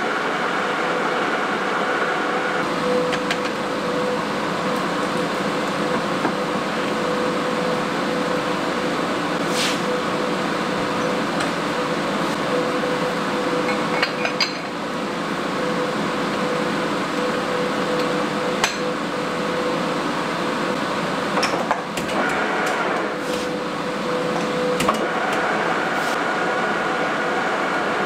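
Metal lathe running with a steady hum while a tool is fed in from the tailstock handwheel, with a few sharp metallic clinks. The hum starts a few seconds in and stops near the end, as the spindle is switched on and off.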